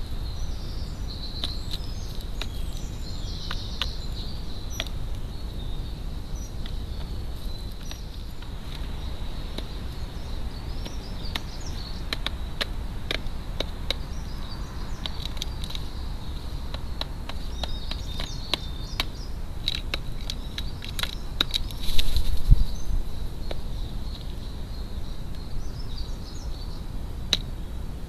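Crows pecking mealworms out of a plastic feeder tub: scattered sharp taps and clicks of their beaks on the food and the tub, over a steady faint high tone and small birds chirping. About three-quarters of the way through there is a louder, brief scuffle.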